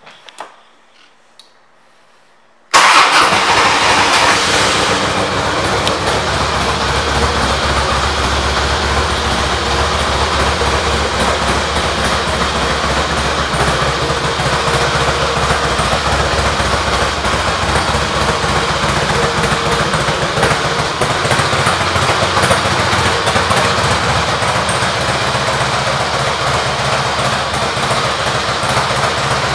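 2004 Harley-Davidson Softail Standard's Twin Cam 88B V-twin starting about three seconds in, catching at once, then idling steadily with a low, even pulse.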